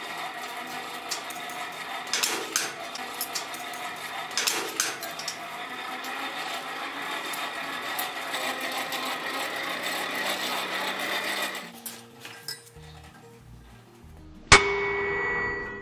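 A hammer strikes hot iron on an anvil once near the end, with a clear ringing that dies away. Before that, a steady whirring hum with a few metallic clinks runs until a couple of seconds before the blow, then stops suddenly.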